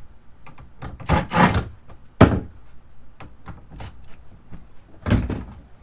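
Hand-tool handling on kayak outfitting hardware: scattered clicks, knocks and rubbing as needle-nose pliers hold a spinning thigh-brace bolt on a plastic kayak. There is one sharp click about two seconds in.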